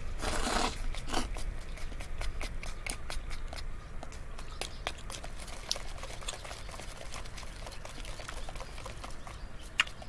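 A person eating sticky natto with chopsticks: a slurp as the food is drawn in at the start, then chewing with many small wet clicks and ticks, and one sharp click just before the end.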